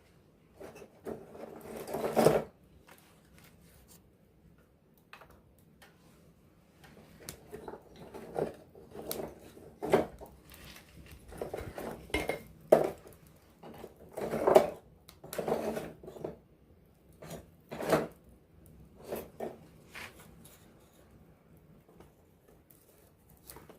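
Campfire burning up close: wood crackling with irregular sharp pops and snaps, in louder flurries every few seconds and quieter stretches between.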